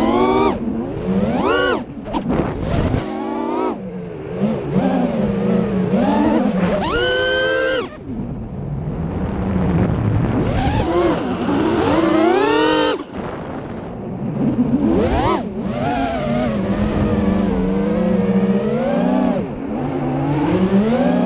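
FPV racing quadcopter's motors whining, the pitch rising and falling quickly with the throttle, with a few sudden cuts.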